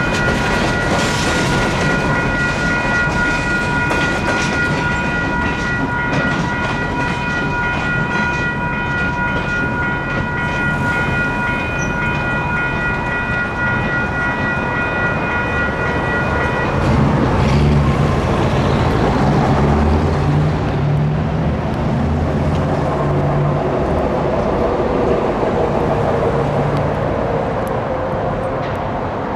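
Electronic railroad crossing bell ringing steadily over the rumble of a passing freight train, and stopping abruptly a little over halfway through as the crossing gates finish rising. After that, a low droning rumble continues.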